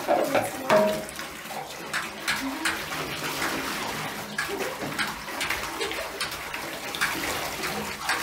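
Bathwater splashing and sloshing in a bathtub in irregular splashes as a German Shepherd puppy paws at it.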